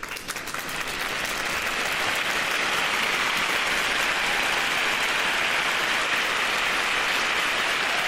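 Applause from a crowd: a few scattered claps at the start build within about a second into dense, steady clapping.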